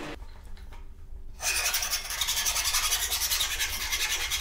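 Hand-tool rasping on a brass tube clamped in a steel bench vise: a steady, fine scraping that starts about a second and a half in.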